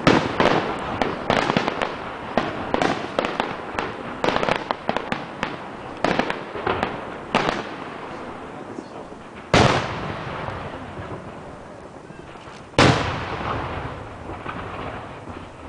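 Aerial fireworks display: a quick string of shell bursts and crackle, then two big booms about three seconds apart, each rolling away in a long fading echo.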